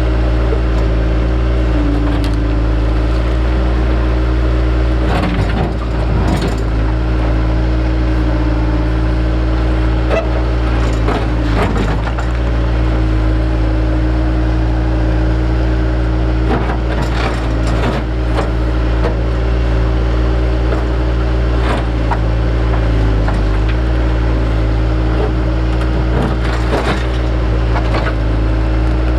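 Engine of an excavating machine running steadily under load, with irregular knocks and scrapes as rock is dug out of the hole.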